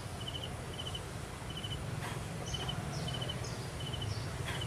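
Steady animal chirping: short chirps of three or four quick pulses at one pitch, repeating about every two-thirds of a second, with a few higher chirps now and then over a low background hum.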